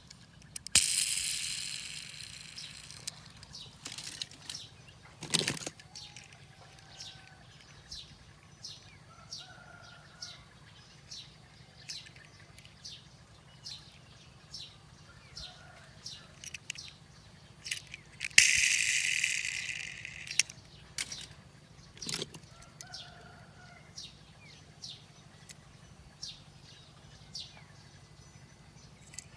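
Nature-sound ambience: a bird chirping over and over in short, falling high notes, a little more than one a second. About a second in and again near the middle, a loud hissing rush lasts about two seconds and fades, and there are a couple of sharp clicks, all over a faint low hum.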